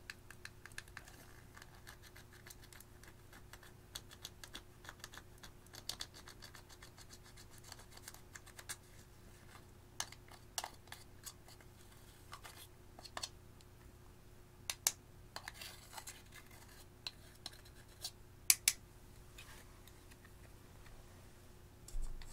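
Small metal spatula scraping and chipping pressed powder makeup out of its plastic compact: a quick run of scratchy clicks, then sparser, sharper taps and clicks, the loudest near the end.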